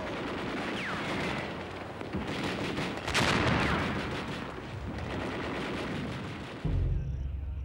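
Battle sounds of gunfire and explosions, dense and continuous, with a few short falling whistles and the loudest blast about three seconds in. Near the end it cuts suddenly to low, steady music.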